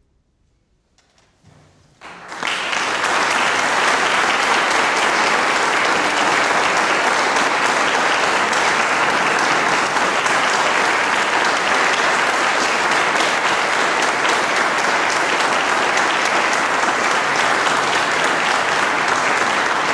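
About two seconds of near silence, then audience applause starts suddenly and goes on steadily.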